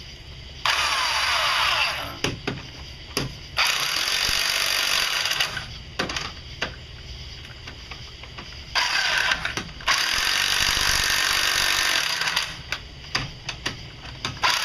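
Power tool running lug nuts onto the wheel studs, three runs of a couple of seconds each, the longest near the middle, with clicks and clanks of the nuts and socket between.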